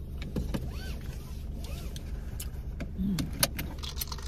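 Steady low hum of a car cabin, with a few light clicks and knocks as a plastic drink cup is handled.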